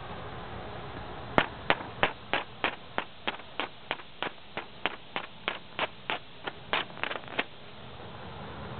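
Fixed-blade knife slicing thin strips off a hanging magazine page in a cuttability (sharpness) test: a quick run of about twenty crisp paper-slicing strokes, roughly three a second, that starts about a second and a half in and stops just over a second before the end.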